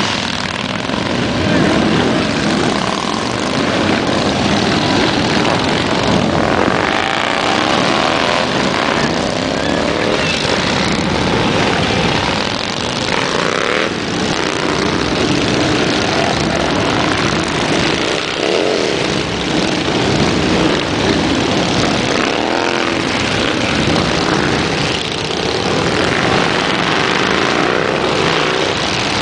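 Many cruiser motorcycles riding past one after another as a group pulls out onto the road, their engines overlapping and revving, with pitches that rise and fall as each bike goes by.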